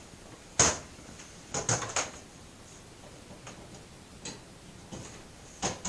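A few brief knocks and clicks from household cleaning: one about half a second in, a small cluster between one and a half and two seconds, and another near the end.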